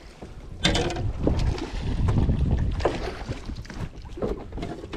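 Wind buffeting the microphone in an open boat, with a sharp knock about half a second in and scattered small clicks and handling noises.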